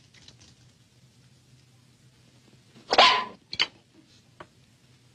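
A dog barks: one loud bark about three seconds in, quickly followed by a second, shorter one.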